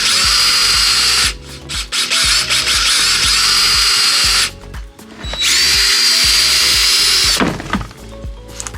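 Electric drill with a 3/8-inch bit boring through the mud-flap mat to open its hanger holes, running in three bursts of a couple of seconds each, its whine rising as it spins up and falling as it stops.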